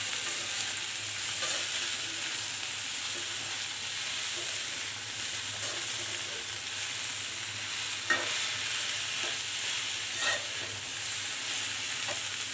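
Boiled yardlong beans frying in a little mustard oil: a steady sizzle, with a metal spoon stirring and clicking against the pan a few times, most clearly about eight and ten seconds in.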